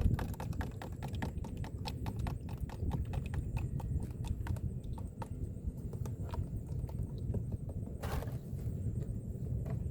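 Irregular light clicks and knocks, dense in the first half, over a steady low rumble, with a louder rustle about eight seconds in.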